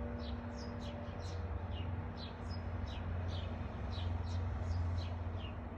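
A small bird chirping in a quick series of short, high, falling notes, about three a second, while the last hum of the church bells dies away in about the first second. A steady low rumble runs underneath.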